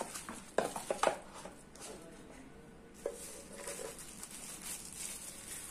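A doorbell camera and its packaging being handled during unboxing: a few sharp clicks and knocks, about half a second and a second in, and another near three seconds, over a faint background.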